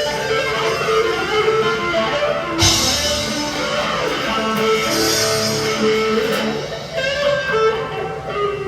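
Squier Stratocaster electric guitar played through a Big Muff fuzz pedal and reverb into a small Fender Champion 20W amp: sustained, heavily distorted lead notes with bends and slides, and a loud struck chord about two and a half seconds in.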